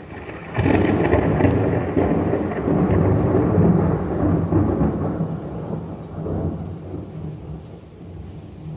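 A loud clap of thunder that breaks suddenly about half a second in, rumbles heavily for several seconds and then fades away.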